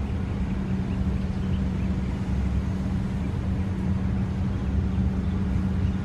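Steady low mechanical hum with a constant drone-like tone, unchanging throughout.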